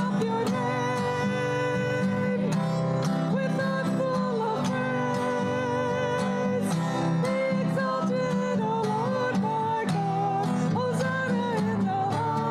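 Women's voices singing a worship chorus together, accompanied by a strummed acoustic guitar.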